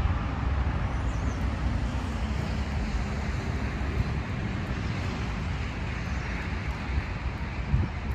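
Steady outdoor rumble of distant road traffic, with wind buffeting the microphone.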